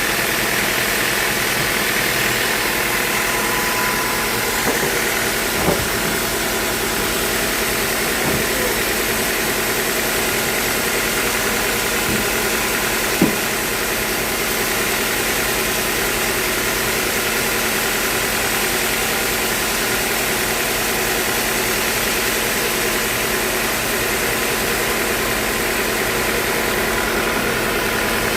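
Sawmill machinery running at a steady speed, a constant mechanical drone with several fixed tones. Two short knocks break it, a small one about six seconds in and a sharper one about thirteen seconds in.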